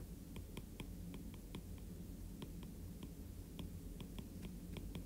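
Stylus clicking and tapping on a tablet while a word is hand-written: a string of quiet, irregular clicks over a low steady hum.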